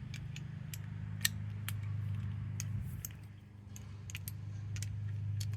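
Metal socket tools being handled: scattered sharp metallic clicks and clinks as a socket extension and deep socket are picked up and fitted, over a steady low hum.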